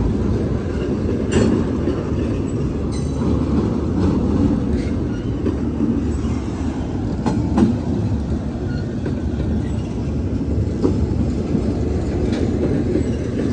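Intermodal freight train's container well cars rolling past: a steady low rumble of wheels on rail, broken by scattered sharp clanks and wheel clicks.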